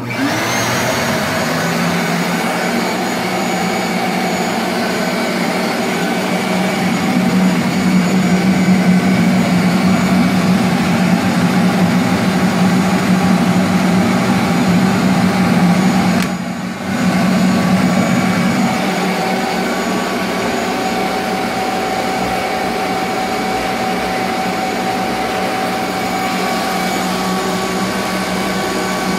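Shop-Vac wet/dry vacuum switched on and spinning up, then running steadily with a whine. It is pulling air through a cocoa bean winnower, which separates husk from nib. It is somewhat louder through the middle, with a brief dip about two-thirds of the way in.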